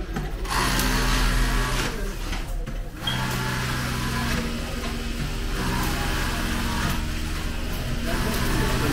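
Industrial sewing machines running in short bursts of a second or so, their motors starting and stopping again and again.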